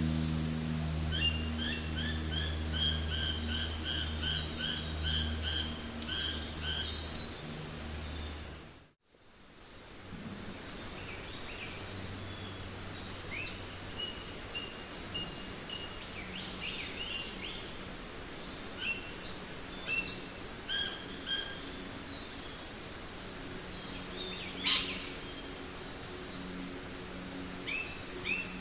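Birds chirping and calling over a low steady hum, a jungle ambience. About a third of the way in, the sound fades almost to silence and returns with a different set of bird calls; the loudest is a single sharp call a few seconds before the end.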